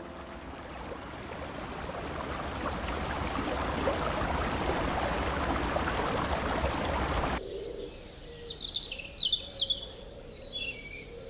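Stream water running over stones, a steady rush that slowly grows louder and cuts off suddenly about seven seconds in. Then birds chirp in short, quick calls.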